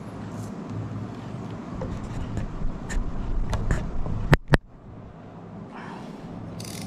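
Shimano Stradic SW4000HG spinning reel being cranked by hand, a steady low whir from its gearing, with scattered light clicks and two sharp clicks in quick succession about four and a half seconds in.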